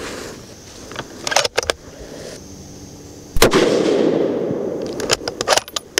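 A single unsuppressed shot from a Sig Cross rifle in .308 Winchester with a three-port muzzle brake, about three and a half seconds in, followed by a long rolling echo. A few short sharp clicks come about a second and a half in and again near the end.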